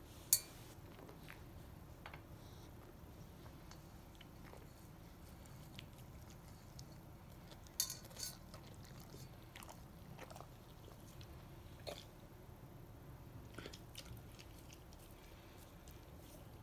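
A Great Pyrenees chewing and eating food, with soft scattered mouth clicks. A few sharper clicks stand out: one just after the start, a pair about halfway through and one more a few seconds later.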